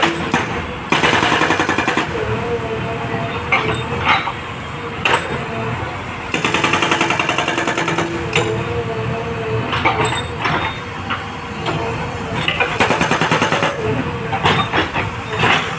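Hydraulic breaker on a JCB backhoe loader hammering in three bursts of rapid blows, with single sharp knocks between bursts, over the steady running of the diesel engine.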